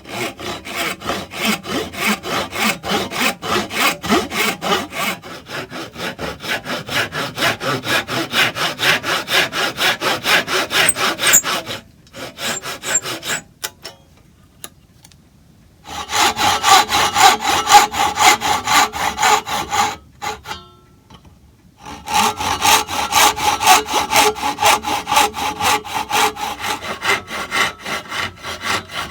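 Hand saw cutting wood in quick back-and-forth strokes, about three a second, in three runs with short pauses about twelve and twenty seconds in. In the later runs the blade rings with a steady tone.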